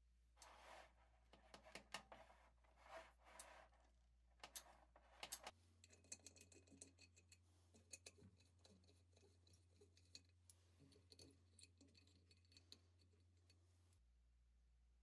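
Rusty steel thumbscrews being worked loose by hand from a cast iron Christmas tree stand's collar. It starts with a few short gritty scraping rasps, then runs into a long series of small, quiet metallic clicks and ticks as the corroded threads turn, and stops abruptly near the end.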